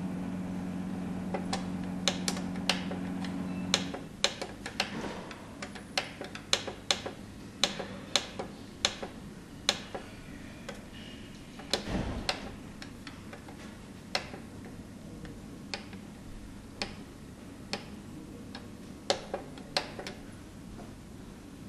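Keys on a Toshiba TEC B-EX4T1 label printer's operation panel being pressed one after another, a quick irregular run of sharp clicks while its menus are stepped through. A steady low hum stops about four seconds in, and a duller knock comes near the middle.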